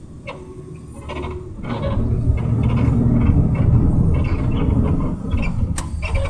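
Low rumble of a moving vehicle heard from inside, engine and tyres on a wet road, swelling about two seconds in and staying loud, with a sharp click near the end.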